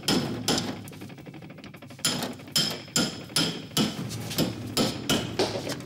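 Hammer striking a steel chisel held against a wall: a quick series of ringing metallic blows, about two to three a second, with a pause of about a second and a half after the first blow.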